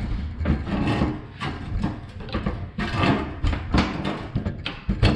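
A forklift's cover panel being worked loose and slid up off the body, with irregular scraping, rubbing and knocks.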